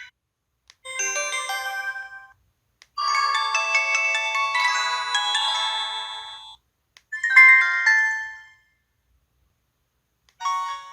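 LG-SH130 mobile phone's built-in sound effects: three short electronic alert jingles played one after another with silent gaps, and a fourth starting near the end.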